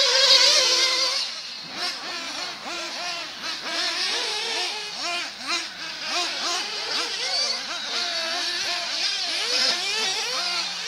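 Small nitro engines of 1/8-scale RC off-road buggies, a Kyosho MP9 Inferno among them, revving up and down as they race. Several engines overlap, their pitch rising and falling every second or so. The loudest, highest whine comes in the first second as one car passes close.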